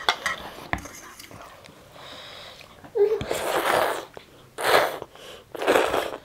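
Instant noodles being slurped in three short breathy bursts in the second half, with a single light click of cutlery near the start.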